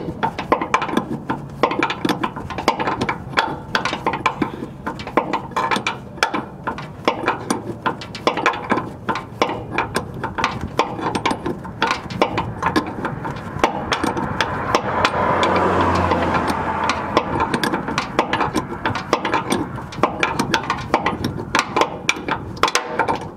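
Rapid, irregular clicking and rattling of plastic and metal parts as a semi-truck sleeper's cab airbag is worked loose and unscrewed by hand from its mount. Around the middle a low hum swells and then fades.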